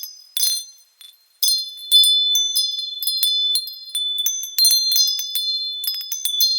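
Wind chimes struck over and over, each strike leaving high ringing tones that overlap. After a brief lull about a second in, a busy flurry of strikes resumes.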